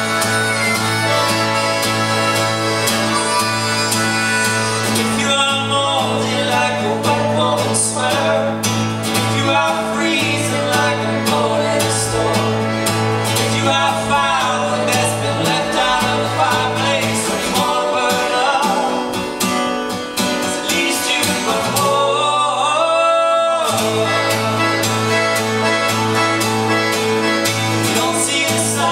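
Live acoustic folk song: strummed acoustic guitar and accordion with singing voices. The low held notes drop out about two-thirds of the way through, leaving the voices nearly alone for a moment before the full band comes back in.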